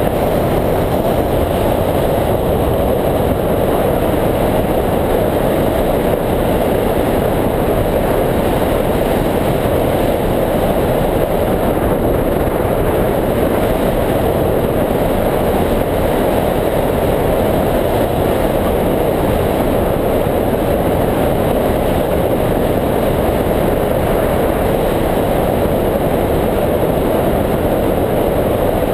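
Steady rush of airflow buffeting the microphone of a camera mounted on a hang glider's wing in flight.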